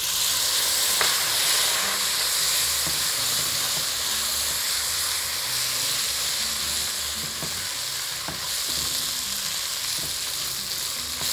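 Grated tomatoes sizzling as they hit a pan of orzo fried golden in corn oil with garlic and cumin. The sizzle starts suddenly and loudly and then runs steadily, with a few light knocks from stirring.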